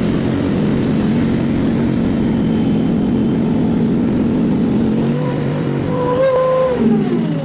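Mini skid steer's Honda GX690 V-twin engine running steadily. Its pitch falls away near the end.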